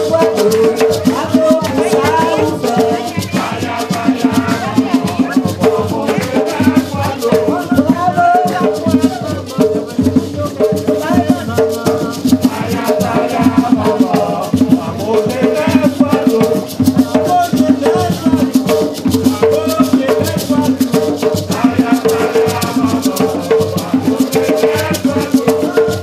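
Gwoka music: ka hand drums with a fast, steady shaker rattle and voices singing.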